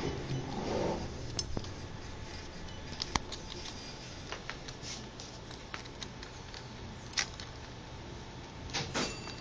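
Scattered small clicks and taps of a screwdriver and metal screen brackets being handled while a laptop LCD panel's mounting brackets are screwed back on.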